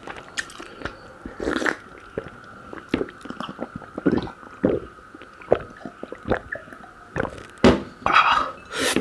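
Close-up eating sounds: a person chewing Hawai Thongba, a pea curry, with irregular wet clicks and smacks of the mouth.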